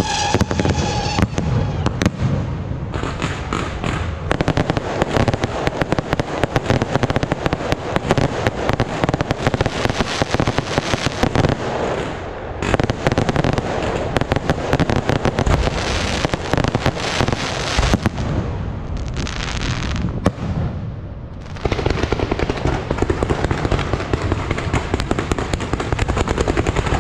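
A fireworks show: a dense, continuous stream of crackling and popping bursts from aerial fireworks, easing briefly about twelve seconds in and again between about eighteen and twenty-one seconds. A high whistle fades out in the first second.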